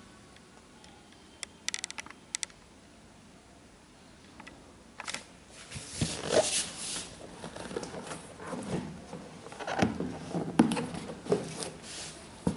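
A large cardboard shoebox being handled and its lid lifted off: irregular scraping and rubbing of cardboard with a few knocks, starting about five seconds in, after a few faint clicks.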